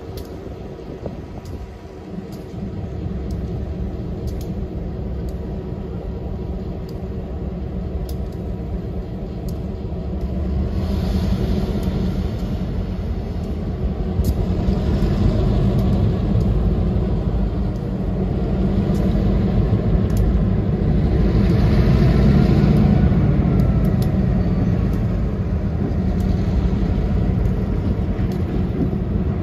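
RJ Corman diesel locomotives running and pulling slowly over a grade crossing, a steady low engine rumble that grows louder as the units come closer, with a faint whine rising and falling a little past the middle.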